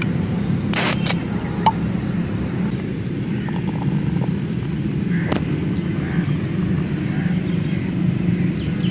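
A drink can's pull-tab cracking open, two sharp clicks about a second in, over a steady low rumble.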